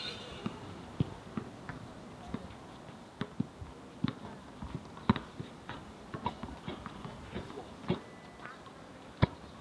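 Irregular sharp knocks and taps on a hard surface, about one or two a second, over a background murmur of voices.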